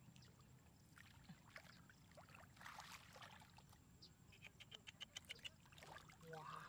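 Faint sloshing and small splashes of shallow muddy water as hands grope through it, with a quick run of faint ticks about two-thirds of the way in.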